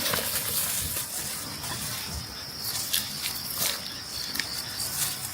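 A steady high-pitched insect drone, with scattered short clicks and rustling over it.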